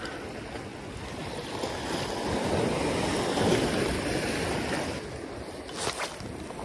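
Sea waves washing against a rocky shore, swelling through the middle and easing off, with one short click near the end.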